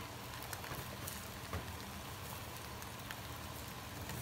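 Steady hiss of cooking: chicken cutlets sizzling on a foil-lined grill tray, with a pot of rice simmering beside them. A few light clicks come from the tongs and spatula turning the pieces.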